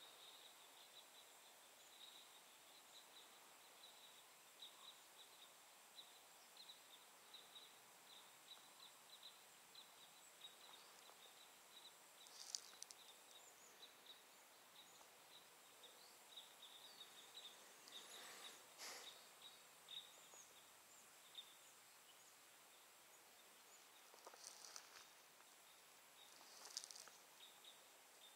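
Near silence in winter forest, with faint, frequent high chirps of small birds and a few brief louder sounds scattered through.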